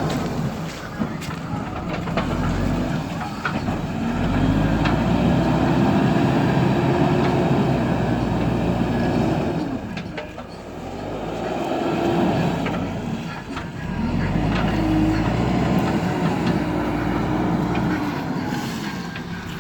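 Backhoe loader's diesel engine working, revving up and easing off in long swells as the hydraulics are loaded, with a few faint clanks.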